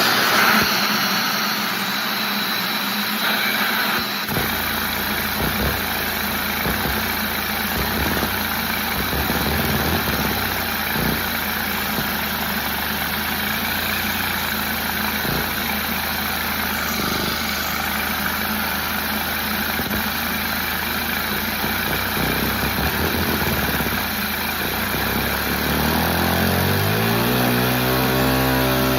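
Small engine running steadily, with a deeper rumble setting in about four seconds in; near the end it speeds up and its pitch rises.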